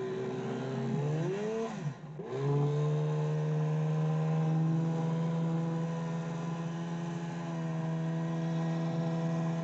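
An engine running: its pitch rises and falls for the first two seconds, dips sharply about two seconds in, then holds at a steady speed.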